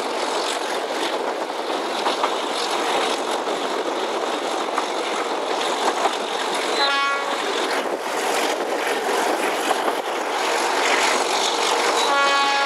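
A train hauled by an Alco RS-8 diesel locomotive running, heard from a coach window as a steady rush of wheel, rail and wind noise. The locomotive's horn gives a short toot about seven seconds in and starts a longer, steady blast near the end.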